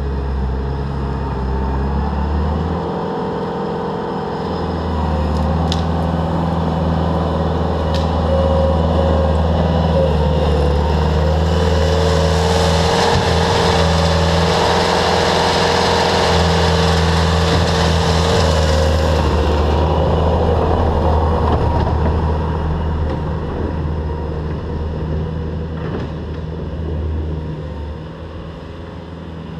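Bobcat T300 compact track loader's diesel engine running under load as it pushes fill. A louder rushing hiss joins it for several seconds midway, and the sound drops off near the end as the machine works farther away.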